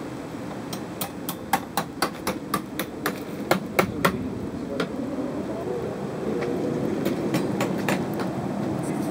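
Blacksmith's hammer striking work on an anvil, a quick run of sharp ringing blows about four a second, then a few scattered lighter taps. Under it the coal forge's air blast rushes steadily, louder near the end.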